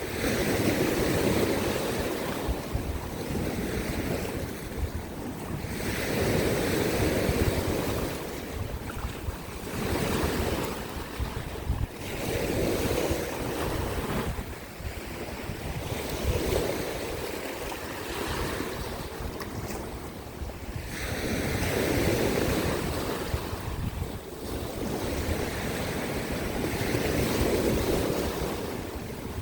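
Sea waves breaking and washing against coastal rocks, the surf swelling and ebbing about every three seconds, with wind rumbling on the microphone.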